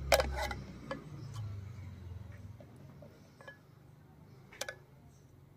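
Metal ladle clinking against the rim and side of a metal cooking pot while curry is served out: a loud cluster of clinks at the start, then a few single clinks spread through the rest.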